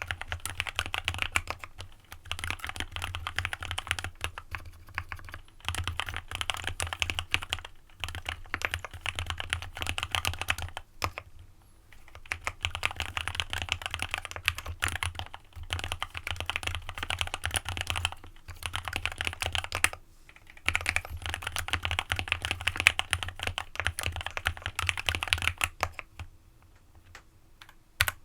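Fast typing on an AJAZZ x VARO AC067 custom mechanical keyboard with lubed Alpaca linear switches and a PE foam mod: runs of rapid keystrokes broken by brief pauses. The typing stops about two seconds before the end, followed by one last loud key strike.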